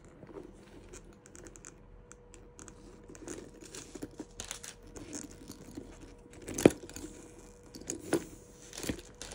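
Rustling and light clicks as a leather handbag is handled, with a sharper knock about two-thirds of the way in and two smaller ones near the end.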